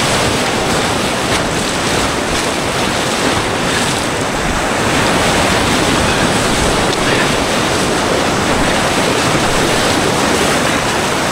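Whitewater rapids rushing steadily and loudly around a kayak running them, with water splashing over the bow.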